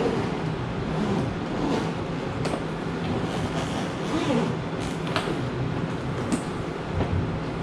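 Handling of the Moza Air 2 gimbal's carrying case as it is opened: a few sharp clicks and some softer rustling and knocking over a steady background hum.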